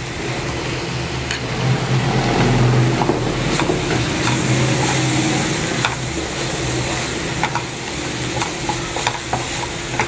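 Onion-tomato masala paste sizzling in hot oil in a metal frying pan while a wooden spatula stirs it, with scattered clicks and scrapes of the spatula against the pan. A steady low hum runs underneath.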